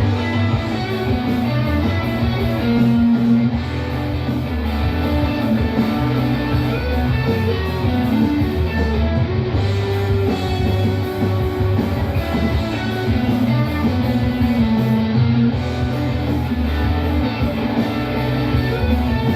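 Instrumental rock music led by guitar, with no singing: the song's instrumental outro after its final line.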